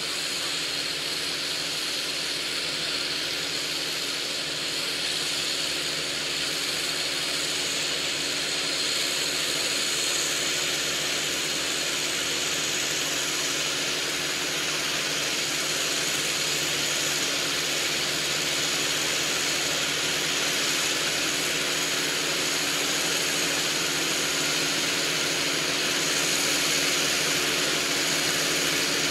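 Kubota MZ755 tractor's diesel engine running steadily as it works the field, growing slightly louder as it comes closer.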